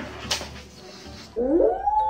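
A dog howls: a loud call that starts about one and a half seconds in, slides sharply up in pitch and then holds a long high note.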